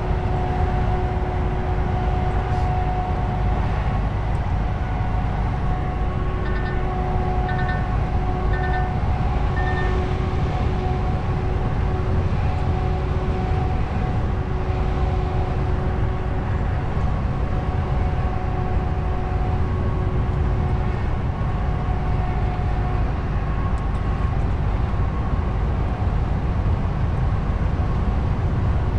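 In-cab noise of a DAF truck driving at road speed: steady diesel engine and tyre rumble with a steady whine. Four short, high beeps sound about a second apart, a few seconds in.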